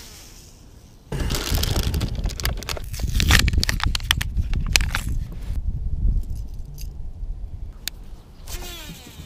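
Plastic fishing-lure packaging crinkling and crackling as it is handled and opened by hand close to the microphone, with clicks and handling bumps. It is loud and dense from about a second in to about halfway, then thins to a few scattered clicks, and near the end there is a short whirr that falls in pitch.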